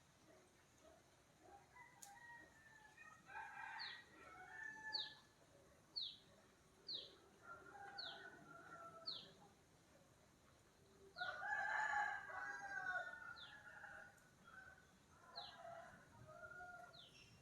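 Rooster crowing several times, loudest about eleven seconds in, with another bird repeating a short, high, falling chirp about once a second.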